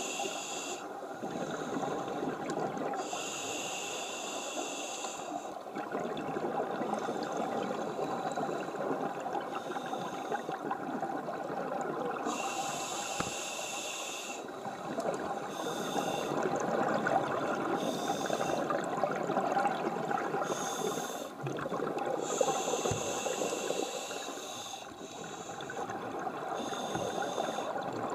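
Scuba diver breathing underwater through a regulator: hissing inhalations at irregular intervals over a steady bubbling rush of water against the camera.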